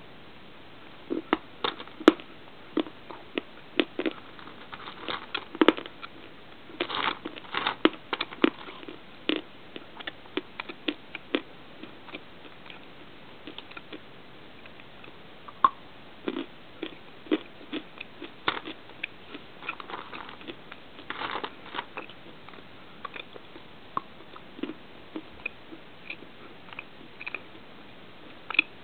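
Dry lumps of natural clay being bitten and chewed: irregular crisp crunches and clicks, with denser crunching about 7 and 21 seconds in.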